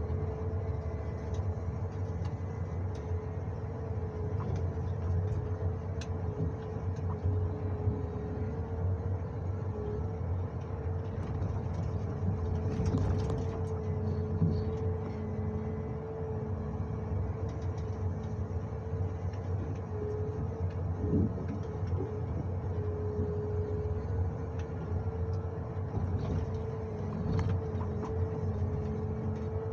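John Deere 1910G forwarder heard from inside its cab: the diesel engine running steadily under a constant whine, with a few sharp knocks from the work, the loudest about halfway through.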